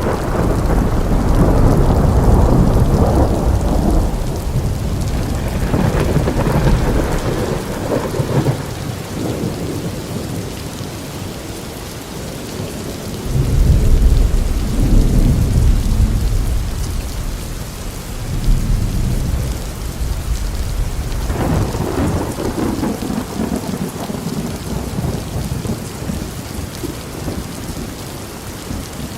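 Steady rain with rolls of thunder: deep rumbles swell at the start, again around the middle, and once more about three-quarters of the way through.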